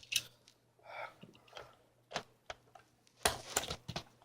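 Scattered light clicks and knocks of an electric airsoft gun's parts being handled and fitted together, with a small cluster of louder clicks near the end.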